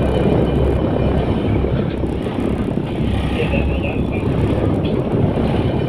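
Steady loud rumble of wind and sea aboard a small boat in rough weather, with wind buffeting the microphone.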